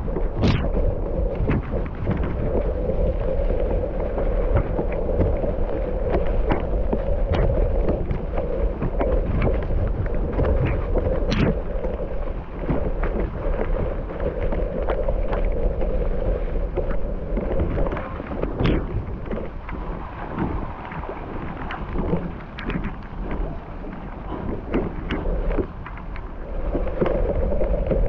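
Mountain bike riding down a dry dirt trail: wind rumbling on the action-camera microphone, tyres running over dirt and rocks, and the bike knocking and rattling over bumps.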